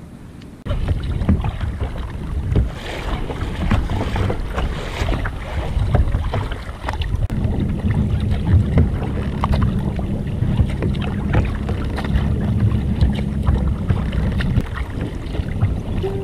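Kayak being paddled across choppy water: paddle blades dipping and splashing, water slapping the hull, with wind buffeting the microphone.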